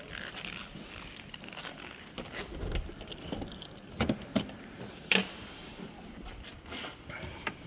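A 1995 Ford Fiesta's engine idling quietly just after a clean start, with a few sharp clicks and light rattles over it about four and five seconds in.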